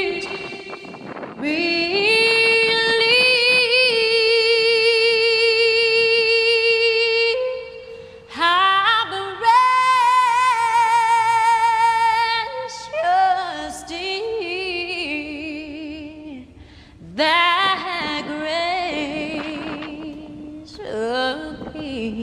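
Music: a woman's voice singing phrases of long held notes with vibrato, broken by short pauses.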